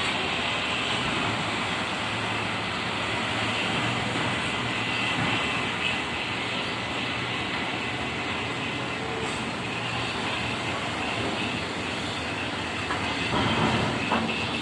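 Steady mechanical din of truck and ferry engines running at a river ferry landing, with a thin high steady whine, and a louder swell about a second before the end.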